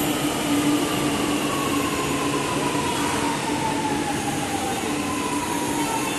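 Chennai Metro electric train sliding along the platform as it slows into the station: a steady rush of wheels and air, with a whine that falls slowly in pitch throughout.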